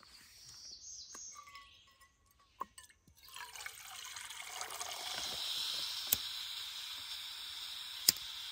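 Water poured from a plastic bottle into a metal cook pot, a splashing hiss that starts about three seconds in and builds as the pot fills. A sharp click comes near the end.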